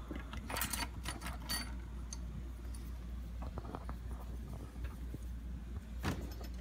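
Light clicks and small metallic rattles of tools being handled on a jeweller's bench, over a steady low hum; the sharpest click comes about six seconds in.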